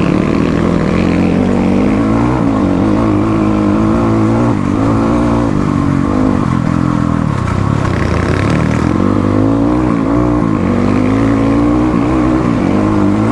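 Motorcycle engine running under way, its revs rising and falling again and again as the rider works the throttle.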